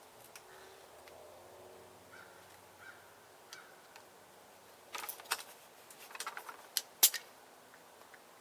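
Sharp clicks and rattling of a bike pump head being handled and fitted onto a tyre's Schrader valve. The clicks come in a cluster about five seconds in, and the loudest single click comes about seven seconds in.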